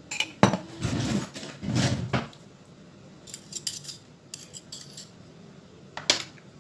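A spoon scraping and clinking against a dish while mustard is spooned into the sour cream: two drawn-out scrapes about a second and two seconds in, then a few light taps.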